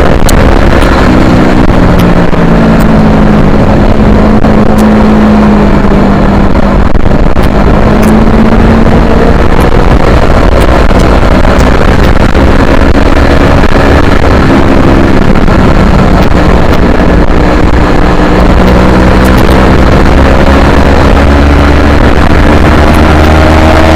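Yamaha R3's parallel-twin engine, heard loud from on board at racing speed, its pitch dropping and holding, then climbing again toward the end as the bike slows and accelerates around the track.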